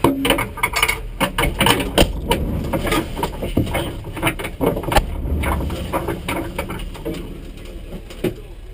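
Repeated clunks, knocks and rustling inside a stationary rally car's cockpit as someone moves about and handles things in it. The knocks come thick in the first few seconds and thin out toward the end.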